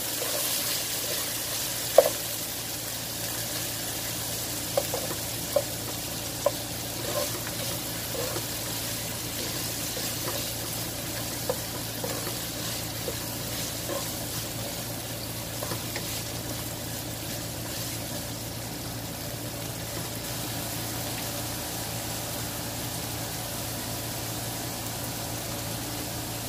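Diced carrots and capsicum sizzling steadily in hot oil in a nonstick wok. A spatula scrapes and taps against the pan while stirring, with the taps ending a little past halfway through, and the sizzle carries on.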